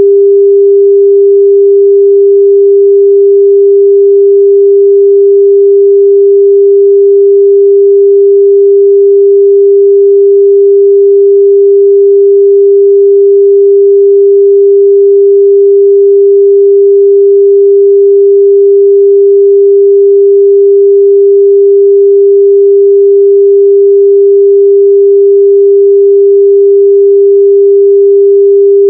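A loud, steady electronic sine tone held at one pitch without a break, played through AirPods or Bluetooth earbuds so that they can be found by their sound.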